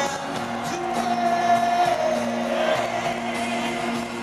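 Live pop band with a male lead vocal playing through a stadium PA, heard from the audience, with a held sung note about a second in.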